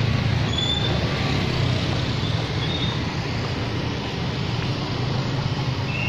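Street traffic: cars and motorbikes running along a town road, a steady rumble with a few brief high-pitched chirps.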